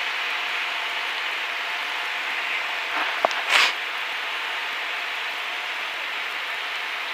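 Steady cabin noise of a Cessna 152 rolling out on the runway after touchdown, its four-cylinder engine at idle. A brief click and a short rush of noise come about three and a half seconds in.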